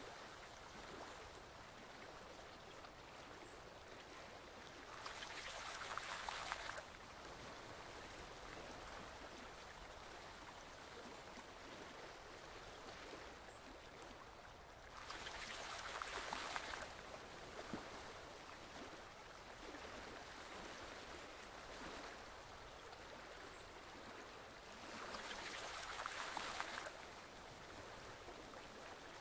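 Forest stream flowing steadily, with three louder swells of rushing water about ten seconds apart.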